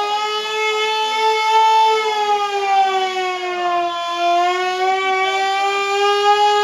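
Air raid siren wailing, its pitch sagging about four seconds in and climbing back. It is the warning to take shelter.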